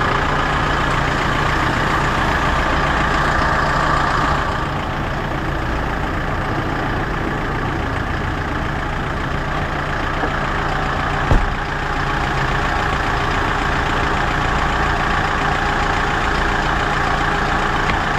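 Kia Bongo III's turbo diesel engine idling steadily. A single thump about eleven seconds in, as the cab seat over the engine bay is pushed down shut.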